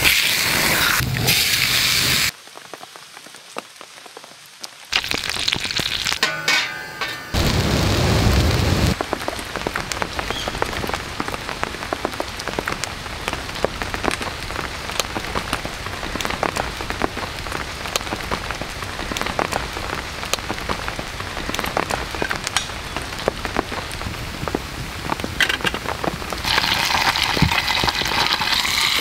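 A few short cooking sounds, then a long stretch of fine steady crackling. Near the end a louder sizzle starts: pork belly frying in a cast-iron hot sandwich maker held over a wood campfire.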